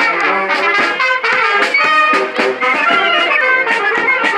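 Marching brass band playing a tune at close range: trumpets and trombones over repeated drum beats.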